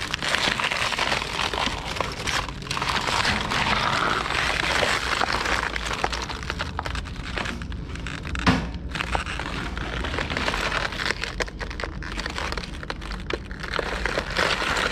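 Plastic packaging and bags crinkling and rustling as dumpster contents are rummaged through, with many small cracks and clicks and one sharper knock about eight and a half seconds in.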